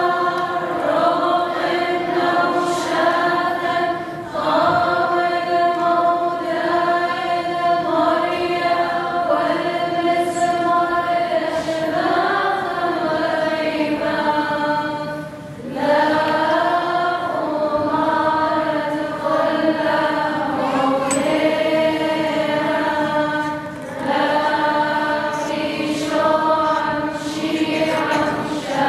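Choir singing a slow liturgical chant, several voices together on long held notes, with short breaths between phrases about 4, 15 and 24 seconds in.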